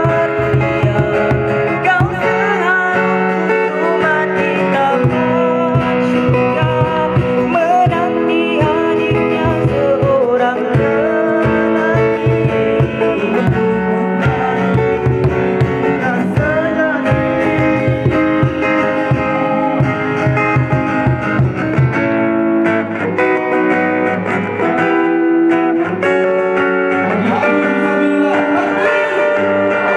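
Live acoustic nasheed: male voices singing a melody over a strummed acoustic guitar and a hand drum beating a steady rhythm.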